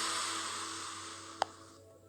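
Mobile phone ringtone through the phone's small loudspeaker, its last hissy note fading away, with one sharp click about a second and a half in.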